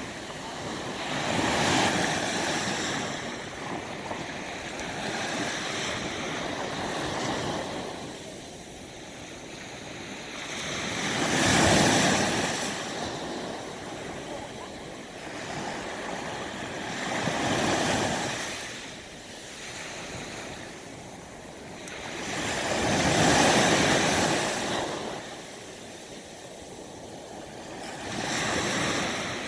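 Ocean waves breaking on the shore, the surf swelling and falling back in surges every few seconds, with wind blowing.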